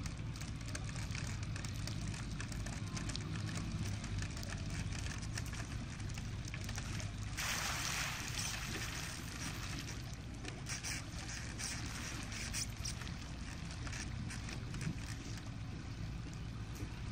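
Water splashing and pouring off a large bamboo-framed khora lift net as it is hoisted clear of the river, loudest for a couple of seconds about seven seconds in, over a steady low rumble.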